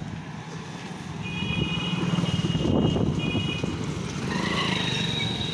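Street traffic: a motor vehicle engine running close by, loudest about halfway through as a motorcycle passes. A high electronic beeping sounds in two short spells in the middle.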